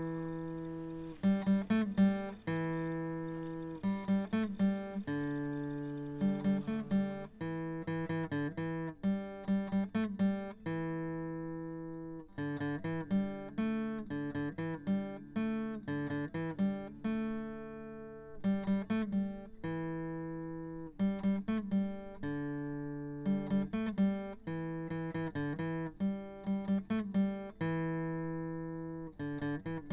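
Acoustic guitar music: plucked notes and chords, each ringing out and fading, in a repeating pattern.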